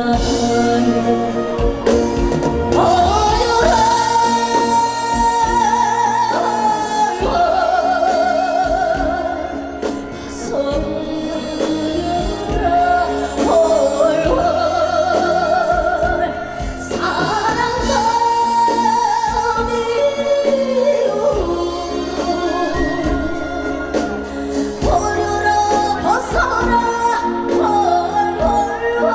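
Trot song performed live: a woman singing the melody with vibrato on held notes over band accompaniment with a steady bass.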